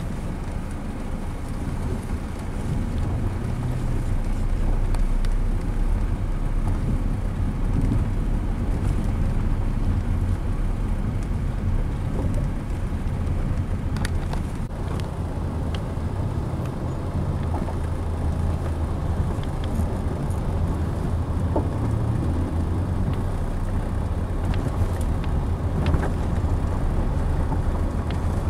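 Inside a car driving slowly over a rough, broken road: a steady low rumble of engine and tyres, with a few sharp ticks and knocks, one about halfway through and one near the end.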